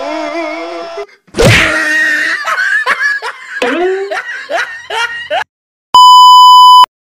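A few seconds of short, repeated voice sounds, then a steady, high test-tone beep lasting about a second, the kind played with television colour bars, which is the loudest thing here.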